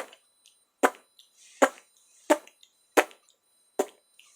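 A steady series of sharp knocks, six of them, a little under one a second.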